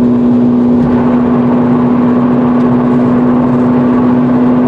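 Ferrari 458's V8 engine and road noise droning at one steady pitch while the car cruises at constant speed, heard from inside the cabin.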